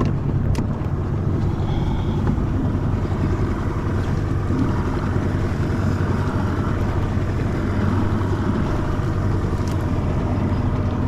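A boat's motor running steadily at low speed, a constant low hum.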